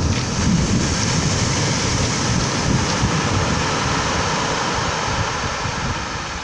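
Surf washing over a pebble beach: a steady rushing hiss of water over the stones that eases off near the end, with low wind rumble on the microphone.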